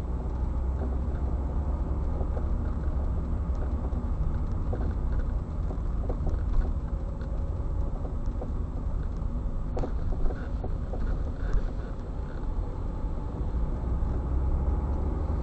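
Skoda Rapid cabin while driving: steady road and engine rumble, with short irregular creaks from the luggage compartment.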